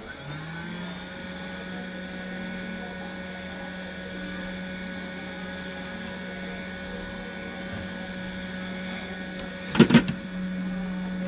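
A small electric motor spins up just after the start and runs with a steady hum. It is broken by a few sharp clicks about ten seconds in, then runs on at a slightly higher pitch.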